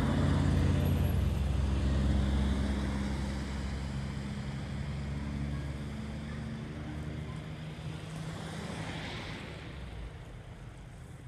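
Diesel buses and a box truck driving along a snow-covered street, their engine hum loudest at first and fading as they pull away.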